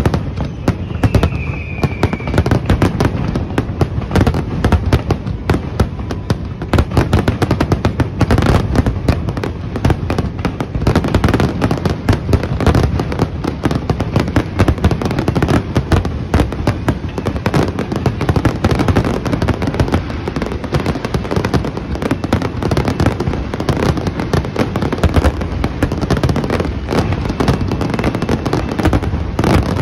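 Aerial fireworks finale: a dense, continuous barrage of shell bursts and crackle, with a short falling whistle about a second in.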